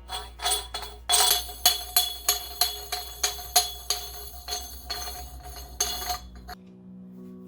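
Background music with a steady beat of bright, jingly tambourine-like hits over a deep bass line. The beat and bass drop out about six and a half seconds in, leaving a softer held tone.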